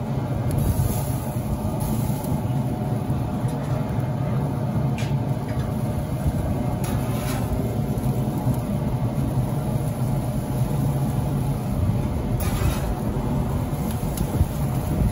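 A steady low rumble runs throughout, with a few brief metallic scrapes and clicks as a metal spatula and tongs lift burgers off the pellet grill's grates.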